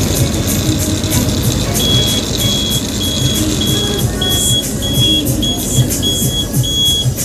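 Ashok Leyland bus's diesel engine running as the bus drives, heard from the driver's cab, with a short high beep repeating about twice a second from about two seconds in.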